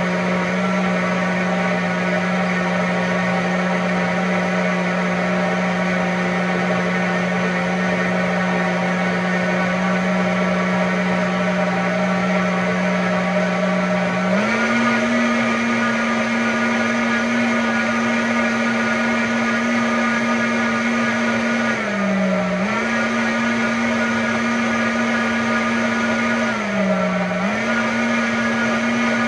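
High-powered countertop blender running steadily, blending beetroot and carrot into juice on its smoothie setting. Its motor pitch steps up about halfway through, then sags briefly and recovers twice.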